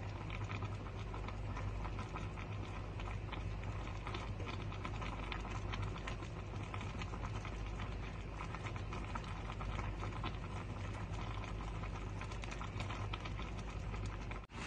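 Meat and vegetables bubbling and sizzling in broth in a wide pan: a steady dense crackle over a low hum.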